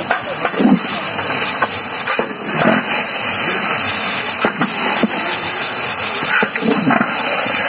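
Mutton pieces sizzling as they fry in a large metal pot, with a long metal spatula scraping and knocking against the pot as the meat is stirred.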